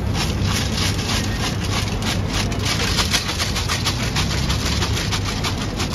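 Seed-roasting machine running with a steady low hum, under a dense, continuous rattle of roasted seeds against metal.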